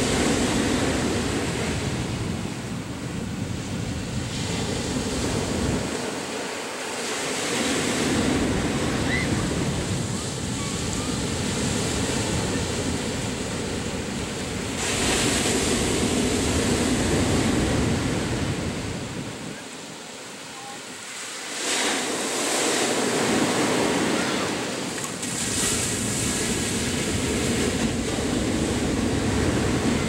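Ocean surf breaking and washing up a sandy beach, the rush of water swelling and falling with each wave, with a brief lull about two-thirds of the way through. Some wind on the microphone.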